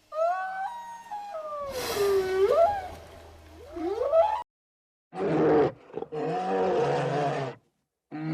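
Whale calls: drawn-out moans and whistles that glide up and down in pitch for about four seconds. After a short silence come two rough bear growls, and a third begins near the end.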